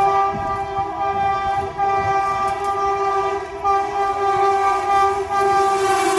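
Indian Railways WAP-7 electric locomotive's horn sounding a long, steady blast at one pitch, broken briefly a couple of times, over a low rumble of the approaching train.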